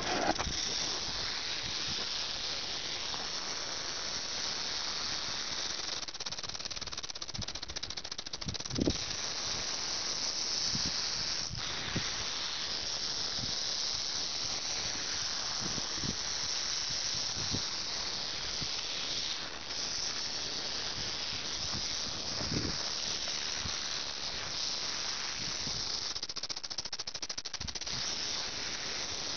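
Rattlesnake rattling its tail in a steady, unbroken high buzz: a defensive warning from a coiled snake.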